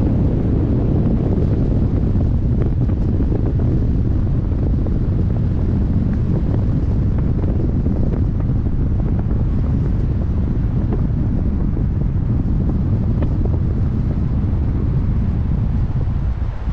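Wind from a hang glider's flight rushing over the camera microphone: steady, loud wind noise, strongest low in pitch, with no let-up.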